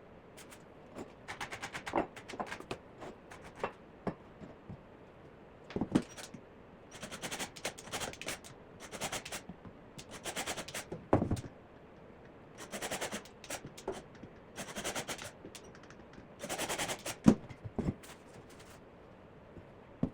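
Power driver running screws into wood in short bursts of fast ticking, about seven bursts in all, with a few sharp wooden knocks in between.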